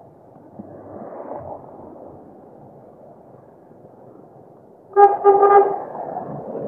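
A vehicle horn gives a few short toots in quick succession about five seconds in, over steady background noise.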